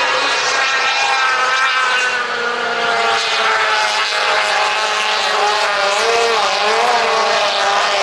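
Racing outboard motors running hard at high revs: a loud, high-pitched engine whine, its pitch wobbling a little a few seconds in.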